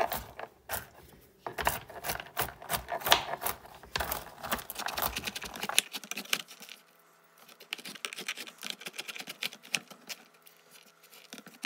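A knife chopping pecan halves on a cutting board: rapid, uneven knocks of the blade on the board with the crunch of the nuts, pausing briefly about six seconds in before the chopping resumes.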